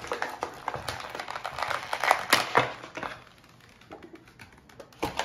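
Scissors cutting through crinkly clear plastic packaging: dense crackling and snipping for about three seconds, then quieter rustling of the plastic with a few light clicks and one sharper click near the end.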